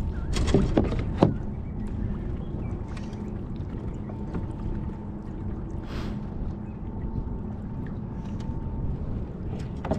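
Steady wind and water noise around a kayak on choppy water, with three sharp knocks within the first second and a half and another about six seconds in.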